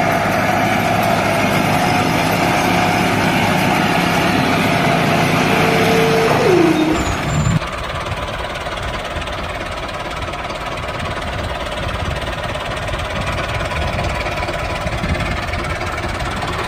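Engine-like running sound of a mini tractor pushing sand with its rear blade, steady throughout. There is a short falling whine about six and a half seconds in. About a second later it cuts to a slightly quieter, rougher running sound.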